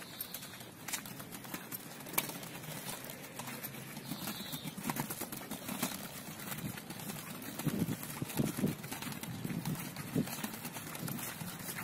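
Small wheels of a child's three-wheeled kick scooter rattling and clicking over the joints of brick paving, with scuffing steps on the pavement; irregular knocks that grow louder and more frequent about eight seconds in.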